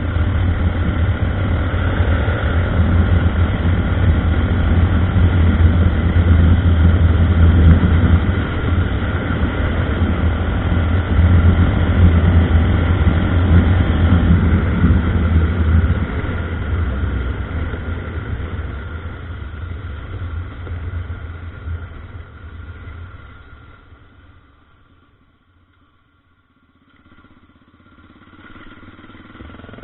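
Honda NX 350 Sahara's single-cylinder four-stroke engine running under acceleration, loud for roughly the first half. It then fades away to almost nothing about 25 seconds in, and an engine sound rises again in the last few seconds.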